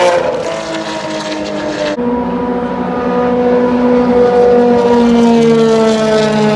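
Car engines running hard on a race track, their notes sliding down in pitch as they pass and pull away. The sound changes abruptly about two seconds in, and a second, lower engine note joins near the end.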